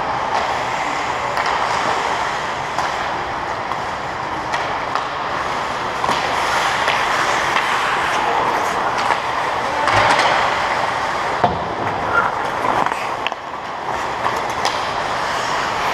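Ice hockey skates scraping and carving on rink ice, a steady hiss, with scattered sharp clacks of sticks and puck as play comes in around the net.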